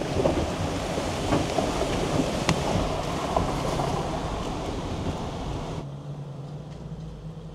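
Jeep Wrangler's tyres splashing through a shallow rocky creek and rolling out onto wet gravel, heard up close at the wheel, with stones clicking and knocking under the tread. About six seconds in this gives way to the steady low hum of the engine heard inside the cab.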